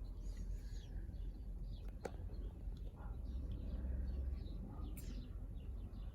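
Faint bird chirps scattered throughout, over a low background rumble. Two sharp clicks stand out, about two seconds in and again near five seconds.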